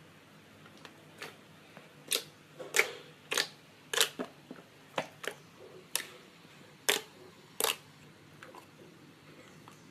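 Slime being worked by hand, giving a run of sharp pops and clicks, about a dozen at uneven intervals, that die away near the end.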